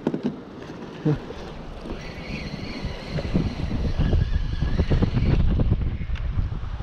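Wind buffeting the microphone on a boat: a low, gusty rumble that grows louder partway through, with a faint steady whine in the middle.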